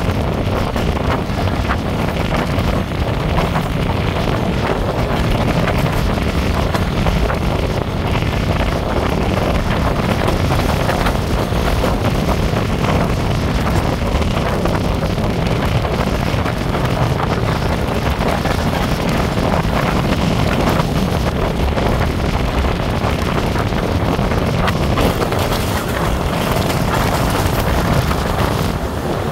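Wind rushing over the microphone held outside a fast-moving passenger train, mixed with the steady running noise of the coaches on the track.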